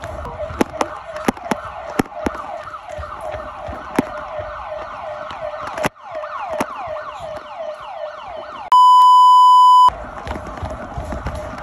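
Earthquake-alert siren wailing in quick, repeated falling sweeps, with sharp clicks over it. About nine seconds in, it gives way to a steady one-second beep tone, then the siren resumes.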